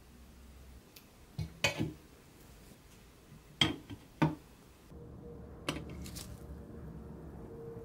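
Sharp metallic clicks and knocks as toy truck wheels and a steel axle rod are handled and fitted into a powder-coated pressed-steel chassis, about five strikes in the first half. A faint steady hum sets in about five seconds in, with a couple more light clicks.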